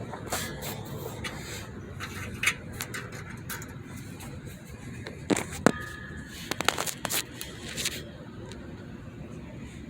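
Metal clicks, knocks and scrapes of a parking brake cable retaining clip being worked by hand into the slotted cable bracket, with one sharper metallic clack and brief ring about six seconds in; quieter near the end.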